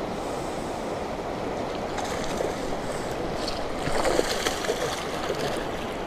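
Shallow river rapids rushing steadily over a rocky bed, with a short louder patch of sharp, splashy sounds about four seconds in.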